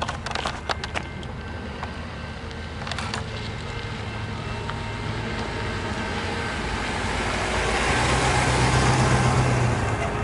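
A diesel-hauled train approaching: a steady low locomotive engine drone with wheel and rail noise that swells over the second half and peaks shortly before the end. A few sharp clicks at the start.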